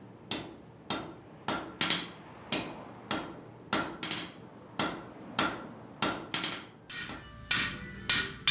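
A blacksmith's hammer striking on an anvil in a steady forging rhythm, about two blows a second. Near the end come a few louder blows that leave a metallic ring.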